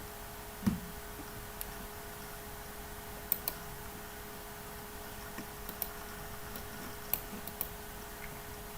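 Eight or so sharp computer clicks scattered irregularly, the loudest about a second in with a dull thump, over a steady faint hum and hiss.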